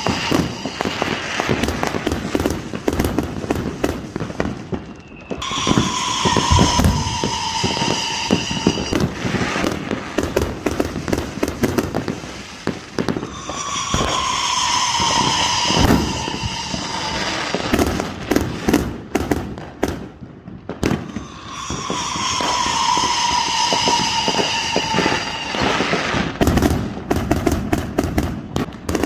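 Fireworks going off in a dense run of crackling pops and bangs. About every eight seconds, a long whistle slides slowly down in pitch over the crackle.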